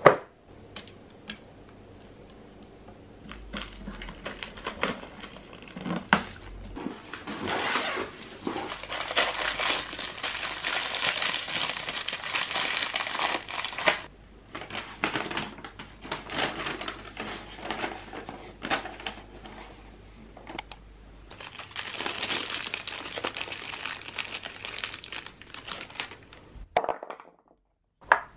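Cardboard and plastic packaging of a flat-pack table crinkling and rustling as the parts are unpacked, in two long stretches with scattered knocks and taps between them.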